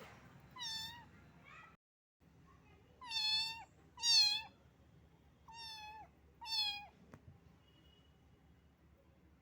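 A young kitten meowing five times in short, high-pitched calls, the two around three and four seconds in the loudest.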